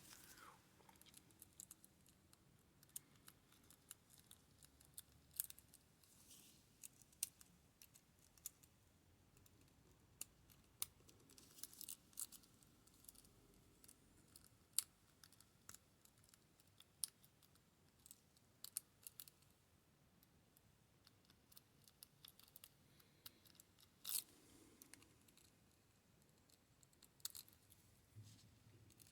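Faint, irregular clicks and scratches of a lock pick and tension wrench working the pins of a six-pin Yale pin-tumbler lock, with a few sharper clicks among them.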